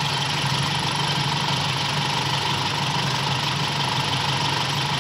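Toyota Kijang Super's four-cylinder petrol engine idling steadily and evenly while warming up, its breaker points and idle freshly adjusted; the idle is fairly smooth.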